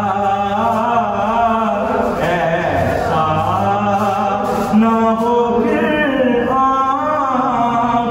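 A man singing a naat, a devotional Urdu poem, in long, wavering held notes.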